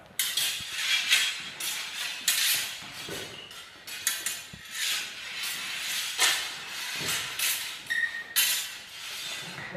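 Sparring footwork on a hardwood gym floor: shoes scuffing and squeaking in a quick irregular run of sharp strikes, mixed with the knocks of practice swords meeting in the bind. A short high shoe squeak stands out about eight seconds in.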